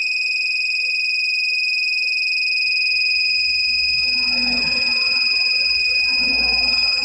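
Small electronic alarm buzzer of a DIY vibration alarm sounding one steady, high-pitched tone without a break. It stays on because the vibration switch is still making contact, so the alarm does not time out.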